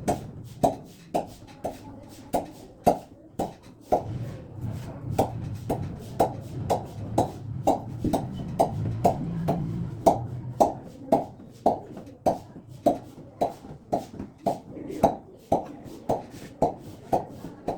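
A steady rhythmic beat of short soft knocks, about two a second, over a low hum.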